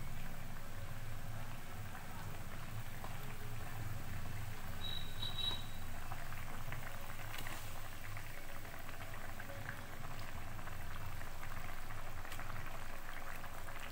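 Thin fish curry gravy boiling in a kadai, a steady bubbling with small pops, over a low steady hum.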